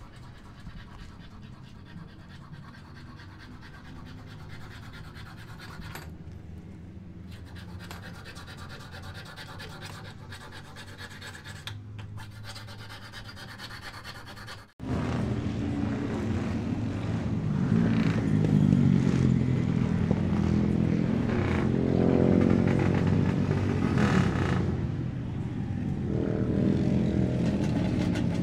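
A low steady hum at first. After an abrupt cut about halfway, a two-stroke racing motorcycle engine runs much louder, its pitch rising and falling as it is revved.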